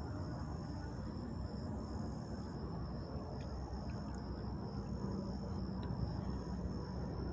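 Insects trilling in a steady, high-pitched drone over a low background rumble.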